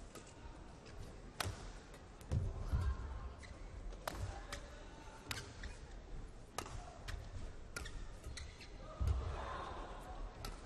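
Badminton rally: rackets striking the shuttlecock back and forth, a sharp crack every second or so. Heavy footfalls land on the court, loudest a couple of seconds in and again near the end, over crowd noise.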